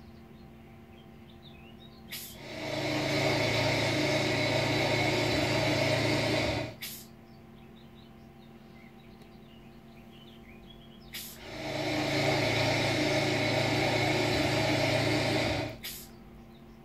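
Sound decoder of a Lilliput model track-tamping machine playing its tamping sound through its small loudspeaker: twice, about four and a half seconds of loud mechanical working noise, each starting and ending with a click, as the machine tamps in cycles. Between the two, a steady low hum and faint bird-like chirps.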